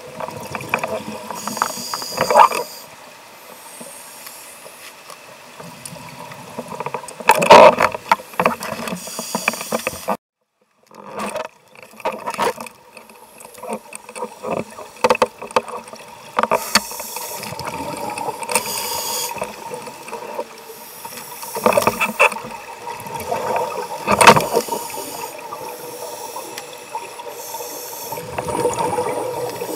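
Scuba divers' exhaled regulator bubbles gurgling and hissing underwater, heard muffled through a compact camera's sealed underwater housing, with louder bubble bursts every few seconds. The sound drops out for about a second roughly ten seconds in.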